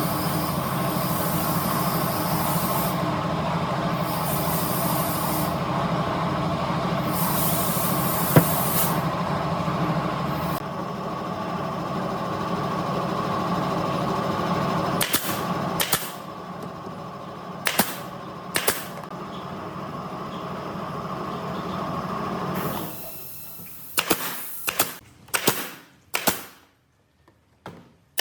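A woodworking power tool running steadily with a constant hum and bursts of hissing, then stopping near the end, followed by a series of sharp knocks.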